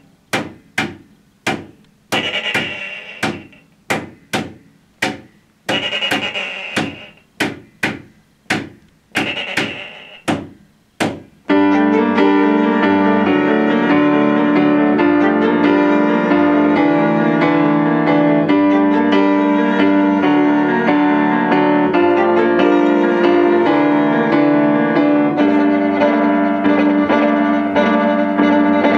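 Live piano and violin duo. For the first ten seconds or so there are sharp, quickly decaying percussive hits in a repeating rhythm. About 11 s in, the piano and violin come in together and play on without a break.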